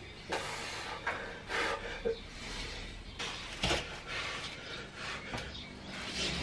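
Short, forceful breaths of effort during cable-machine exercises, repeated every second or so, with a knock from the machine about three and a half seconds in.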